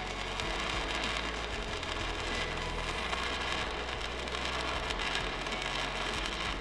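Electric welding arc on a steel pipe joint, sizzling steadily and evenly: the pipe's magnetic field has been nulled, so the arc holds consistently with no arc blow.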